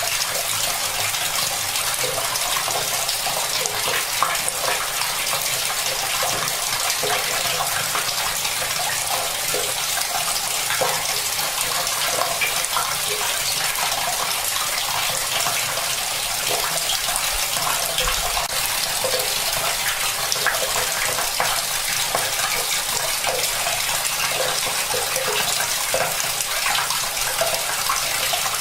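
Tap water running steadily from a faucet into a bucket, filling it.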